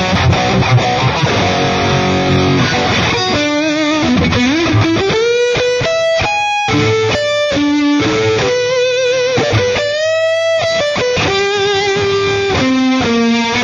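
Dean Razorback electric guitar being played: dense chordal riffing for about the first three seconds, then a lead line of single held notes with a string bend and vibrato.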